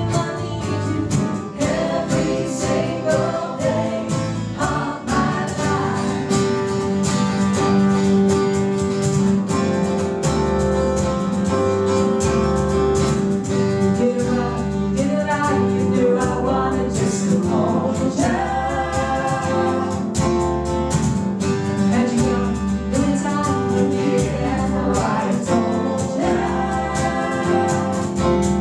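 Live vocal music: several voices singing together with guitar accompaniment and a steady bass line.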